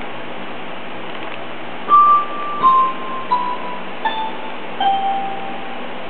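Five clear, chime-like tones, each held about half a second, stepping down in pitch one after another over a steady background hiss.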